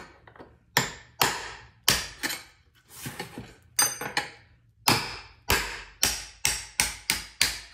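Hammer striking a steel chisel wedged under a speaker's magnet, a rapid series of about fifteen sharp metallic blows at roughly two a second, each ringing briefly, knocking the magnet off the metal speaker frame.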